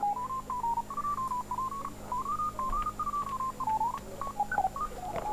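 A simple tune carried by a single pure, high tone, stepping up and down from note to note with short slides between some of them, over a steady low hum.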